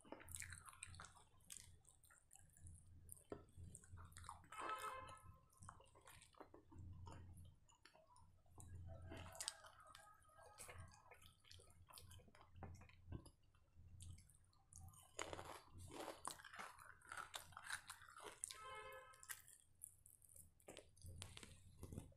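A person chewing chicken, faint, with many short mouth clicks throughout.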